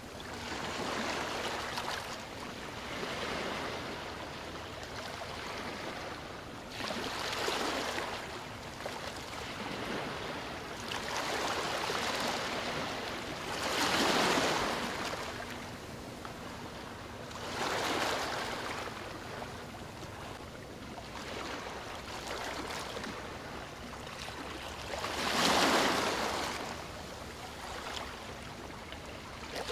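Sea waves breaking and washing up the shore, a steady wash of surf with a wave cresting every three to four seconds.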